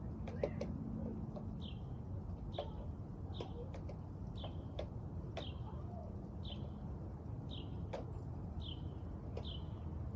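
A small bird chirping over and over, one short slightly falling chirp about every second, over a steady low rumble of wind noise.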